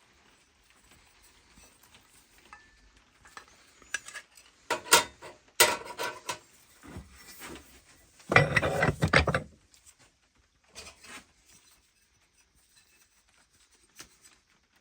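Hard metallic clinks and knocks, then about a second of loud scraping or rubbing, with a few light taps after. This is handling and cleaning a small aluminium casting.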